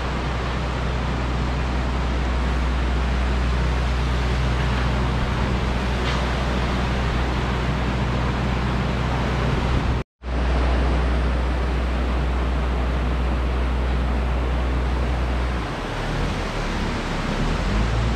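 A car driving: steady road and engine noise with a low hum, broken by a brief dropout about ten seconds in.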